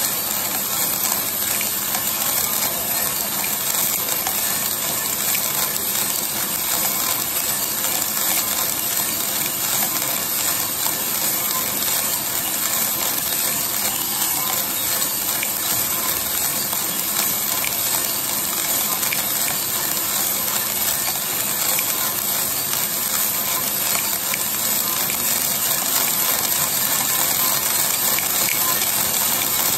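Green coffee beans, a 1 kg batch, tumbling and rattling in the rotating drum of a 3 kg Mill City roaster turning at about 40 rpm: a steady, dense clatter that grows a little louder near the end.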